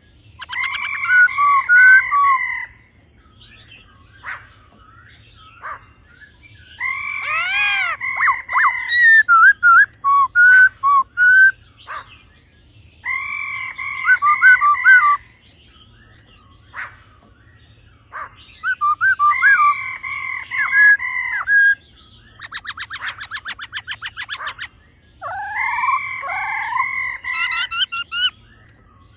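Black-throated laughingthrush singing: loud, ringing whistled phrases of two to four seconds each, repeated with short gaps. A fast rattling run of notes comes about two-thirds of the way through.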